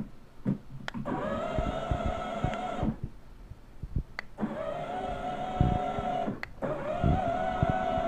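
Electric drive motors and gearboxes of a battery-powered children's ride-on toy car whining steadily as it drives, in three runs with short breaks near three and six seconds. A few knocks and clicks come between the runs.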